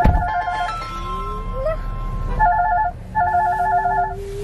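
Mobile phone ringing with a trilling electronic ringtone: a double ring ending about half a second in, then another double ring after a pause of about two seconds.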